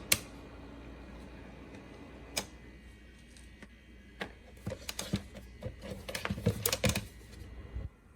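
A small electric space heater being handled. There is a sharp click at the start over a faint steady fan hum, then a flurry of irregular plastic clicks and knocks in the second half. The hum stops near the end.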